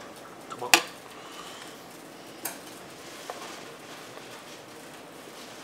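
Steel ladle clinking against a large metal chanko pot: one sharp clink about a second in, then a couple of lighter knocks.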